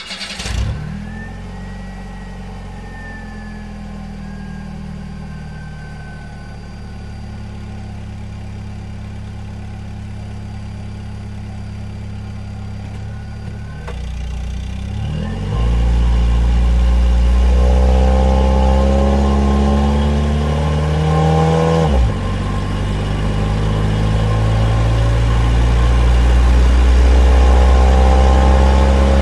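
A motor vehicle engine running steadily, then louder from about 15 seconds in, its pitch climbing under throttle. The pitch drops sharply about 22 seconds in, then climbs again.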